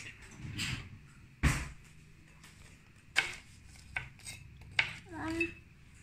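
A knife cutting between baked shortbread cookies on a parchment-lined metal baking tray: several sharp knocks and clicks of the blade against the tray, the loudest about one and a half seconds in, with short scraping between them.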